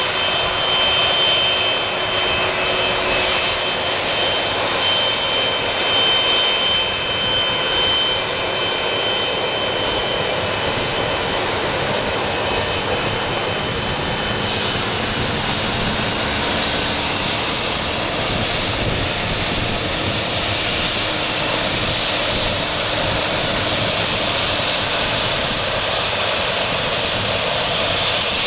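Boeing 757-200 jet engines running at low power as the airliner moves along the runway: a steady jet rumble and hiss, with a thin high whine that fades out about halfway through.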